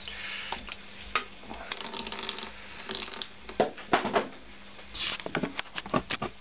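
Workshop handling noises on a Honda CX500 motorcycle's cooling system: a series of sharp clicks and knocks with short rustling and scraping, as a coolant hose and tools are handled. The sounds come in clusters, most of them in the middle and near the end.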